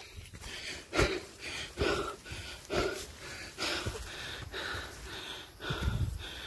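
A hiker breathing hard in rhythmic puffs, about one breath a second, winded from climbing a steep trail uphill.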